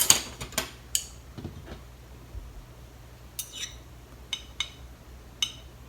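Eating utensils clinking against a dish: a quick run of taps at the start, then several separate, ringing clinks.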